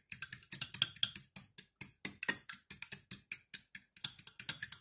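Metal fork beating sour cream and eggs in a ceramic bowl, clicking against the bowl's sides and bottom in rapid, uneven strokes, several a second.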